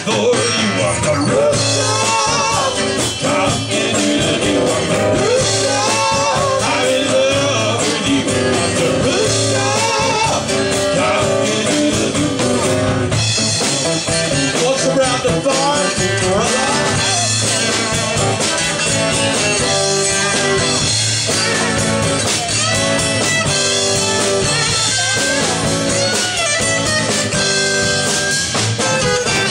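Live band playing a bluesy country-rock song: strummed acoustic guitars and electric bass with drums, and a voice singing over them.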